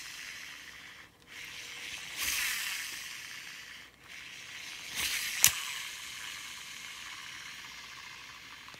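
Shimano Exsence DC baitcasting reel spool spinning freely in three runs, each a high hiss that fades away, with only a faint DC brake whine: the reel's DC brake sound has mostly gone. A sharp click about five and a half seconds in.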